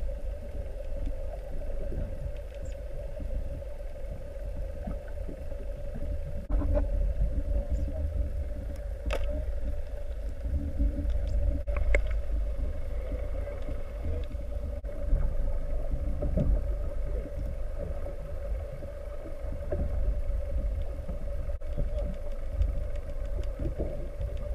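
Muffled underwater rumble, as heard by a camera submerged in the sea, with a steady mid-pitched hum running through it and a few faint knocks.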